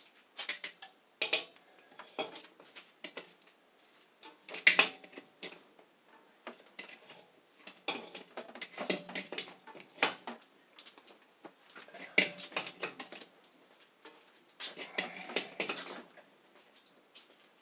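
Metal wrench clinking and scraping against the threaded pipe fitting of a boiler expansion tank, in short bursts of turning with pauses between, the loudest clink about five seconds in, as the new tank is tightened onto its connection.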